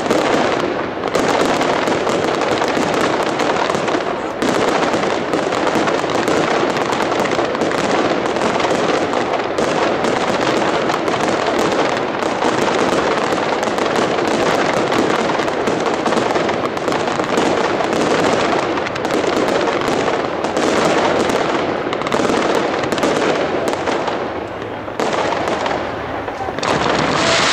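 Fireworks display: dense, unbroken crackling and banging of comets and bursts fired in rapid succession, easing briefly near the end.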